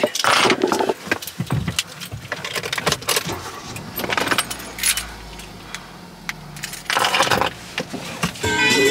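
Irregular clicks, rattles and rustles of things being handled, with music coming in near the end.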